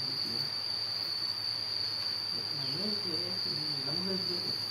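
One unbroken high-pitched insect call at a constant level, with faint low voices talking in the background partway through.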